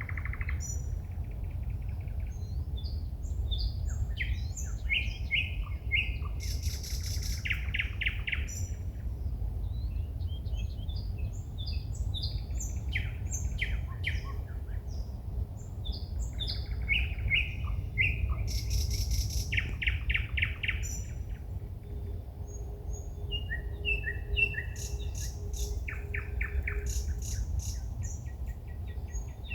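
A songbird singing at night: a run of short varied phrases of rapid repeated notes, trills and loud clicking rattles with brief pauses between them, over a steady low rumble.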